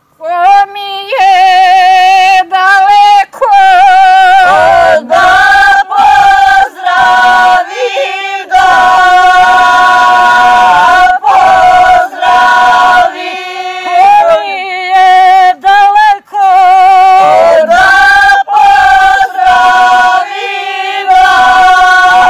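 A group of women singing a traditional Serbian rural folk song unaccompanied, in long held notes with short breaks between phrases. The singing begins about half a second in.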